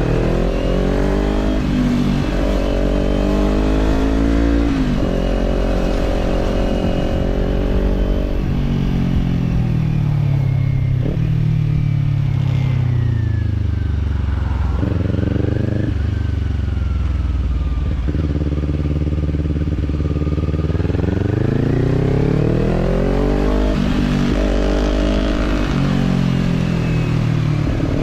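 Kawasaki parallel-twin motorcycle engine under way. The revs climb and step down at upshifts in the first several seconds, then fall away through the middle as the bike slows. The engine picks up again, with another shift, in the last few seconds.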